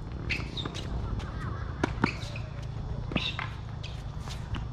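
Tennis rally on a hard court: several sharp pops of the ball coming off strings and bouncing, irregularly spaced, with short high chirps between them over a steady low rumble.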